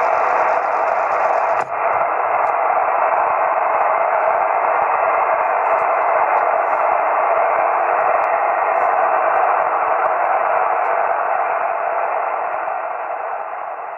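Steady hiss of band noise from an 11-metre SSB radio receiving on 27.570 MHz upper sideband with no station coming through, heard through the radio's speaker. A click comes just under two seconds in, after which the hiss sounds slightly narrower.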